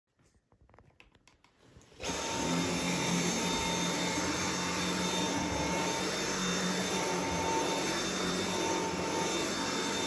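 Dyson V7 cordless stick vacuum with its motorised brush head on a rug. After a few faint clicks it starts abruptly about two seconds in and then runs steadily with a high whine.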